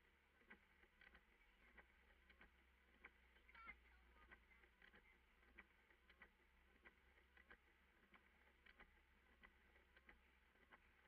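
Near silence: faint, scattered light ticks, a few a second, over a low steady hum.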